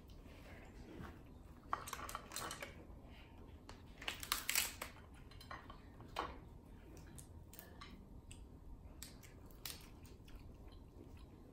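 Crab leg and shrimp shells being cracked and peeled apart by hand: short clusters of sharp crackling snaps about two seconds in and again near the middle, with softer clicks of picking at the shells between.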